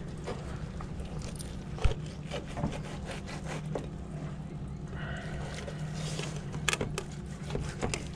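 Filleting knife working a flathead fillet on a plastic cutting board as the skin is peeled back: small wet scrapes and clicks over a steady low hum, with a sharp knock about two seconds in.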